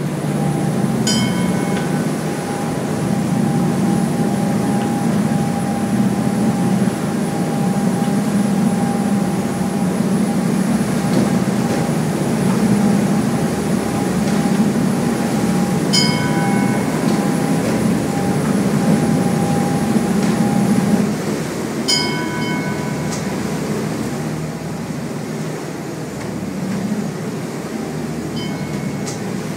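Steady low drone of a motorboat's engine running underway, with the hull and water noise of choppy water. Short ringing clinks come about a second in, near the middle, in a quick cluster around 22 s, and once more near the end.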